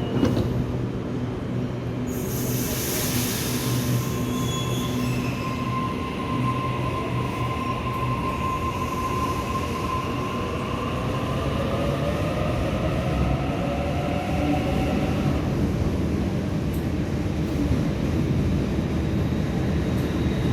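Sydney Trains electric suburban train pulling out of the platform: a burst of air hiss about two seconds in, then a whine that rises in pitch as the train gathers speed, over a steady rumble of wheels on track.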